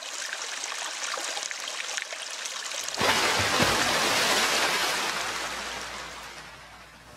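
Splashing, trickling water sound effect that grows much louder about three seconds in, then fades away.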